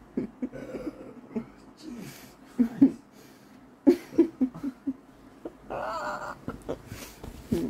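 A woman stifling laughter behind her hand: short breathy giggles in bursts, with a brief high wavering vocal sound about six seconds in.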